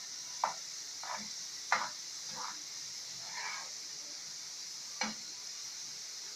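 Potato fries sizzling steadily in hot oil in a pan, with a stirring utensil scraping and knocking against the pan about six times as they are turned to keep them from sticking.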